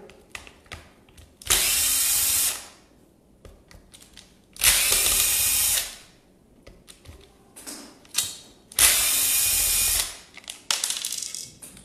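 Cordless drill-driver with a Phillips bit backing screws out of a circular saw's motor housing. It runs in three bursts of about a second each, with small clicks between them.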